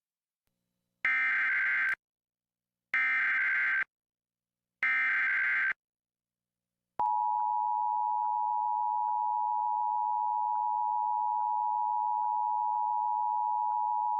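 Emergency Alert System SAME header: three short, raspy digital data bursts about two seconds apart, then the steady two-tone EAS attention signal starting about seven seconds in. It marks the start of a broadcast emergency alert, here a fire warning.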